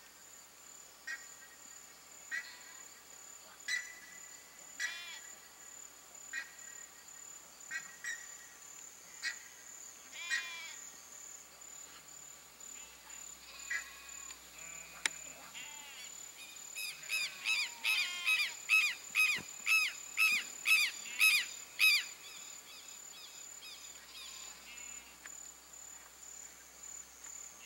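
Birds calling over a steady high insect buzz: a short sharp call repeated about every second and a quarter, then, about two-thirds of the way in, a louder run of quick repeated notes lasting about five seconds.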